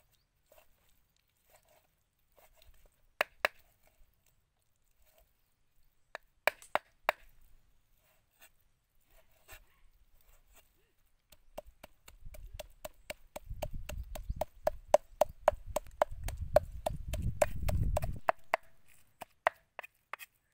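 Heavy cleaver chopping raw pork on a thick round wooden chopping block. It starts with a few single knocks, then from about halfway it turns into a fast, steady run of chops, about five a second, as the meat is minced.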